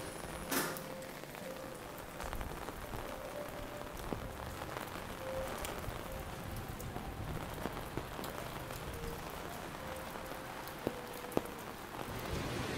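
Steady rain falling, raindrops pattering on surfaces close by, with a few sharper taps about half a second in and twice near the end.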